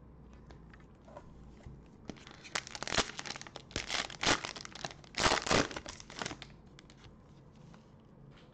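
Plastic cello-pack wrapper of a Panini Prizm trading-card pack being torn open and crinkled by hand: a run of sharp crinkles starting about two seconds in, loudest just past the middle, dying away after about six seconds.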